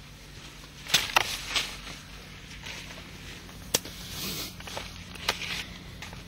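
Green shoots snapped off grapevine trunks by hand during disbudding (ébourgeonnage), with leaves rustling: a handful of sharp snaps, three close together about a second in and more spread out later.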